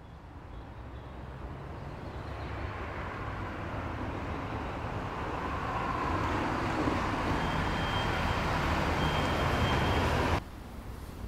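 A car's engine and tyres approaching and pulling in, growing steadily louder for about ten seconds, then cut off abruptly.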